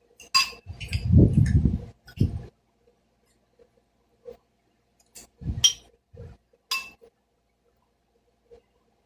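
Metal utensils clinking against a plate several times during eating, mixed with dull low bumps and handling noise close to the microphone.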